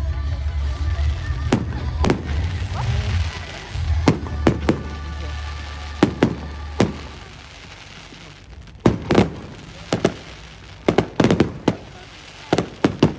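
Fireworks going off: single sharp bangs of bursting shells, then rapid clusters of reports in the second half. For the first seven seconds or so, music with a heavy bass plays along, then fades out.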